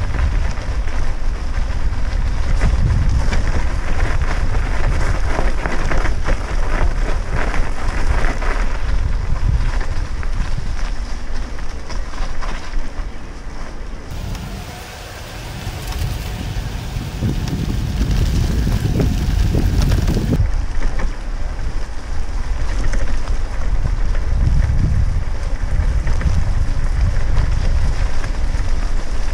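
Wind rumbling on the microphone of a moving bicycle, with tyres crunching and rattling over a gravel path. The rumble drops for a few seconds about halfway through.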